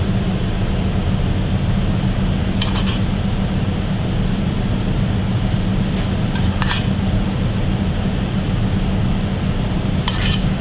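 A metal spoon clinks lightly against a stainless saucepan and a porcelain plate a few times as butter emulsion is spooned out, over a steady low hum.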